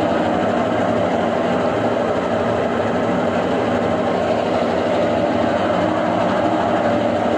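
Brastemp BWK11 washing machine running: a steady mechanical hum and rumble that holds evenly throughout.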